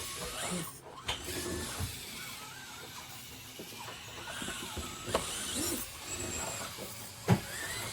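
Tiny electric motor and plastic gears of a mini-scale RC crawler truck working as it creeps over the course, with a few sharp knocks of the truck against the terrain, the loudest near the end.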